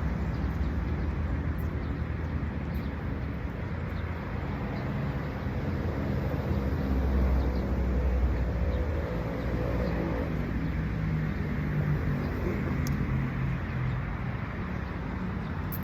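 Low rumble of a motor vehicle's engine, swelling to its loudest about halfway through.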